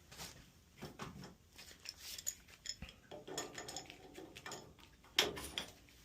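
Metal tools clinking and clanking against boiler pipe fittings, a string of separate knocks with short ringing, the loudest a little after five seconds in.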